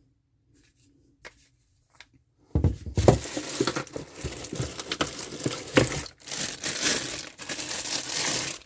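Packaging being crinkled and torn open by hand: a few faint clicks, then from about two and a half seconds in, loud continuous crackling and tearing.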